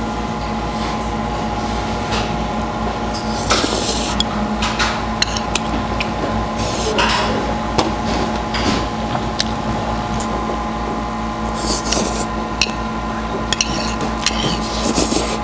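Mukbang eating sounds: metal chopsticks and spoon clinking and scraping against a hot pan of stir-fried webfoot octopus and noodles and against a bowl, with noodles slurped near the end. A steady hum runs underneath.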